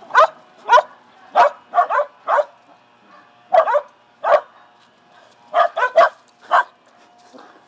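Shetland sheepdogs barking during rough play: about a dozen short, sharp, high barks in quick clusters, with brief pauses between the clusters.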